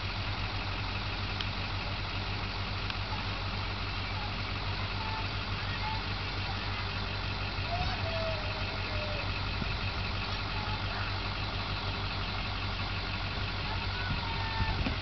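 A school bus's diesel engine idling steadily at a stop, a constant low hum, with faint voices now and then.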